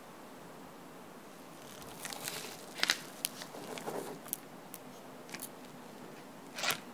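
A metal fork cutting down through a slice of cheesecake with a Lotus biscuit crust. After a quiet start, there is a scatter of sharp crunches and crackles from about two seconds in, the loudest near three seconds, and a longer crackle near the end.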